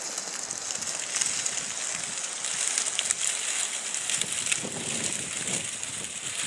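Radio-controlled scale crawler truck driving over dry leaf litter: a steady crackling hiss of leaves under its tyres mixed with the whir of its drivetrain, with scattered small clicks.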